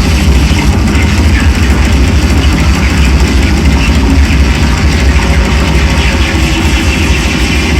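Live drone noise music: a loud, unbroken wall of distorted noise over a heavy sustained low drone, with no pauses or clear beat.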